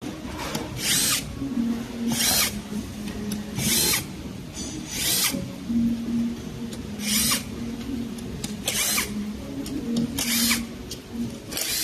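Power drill run in short bursts, about eight times at intervals of a second or two, with a steady low hum between the bursts.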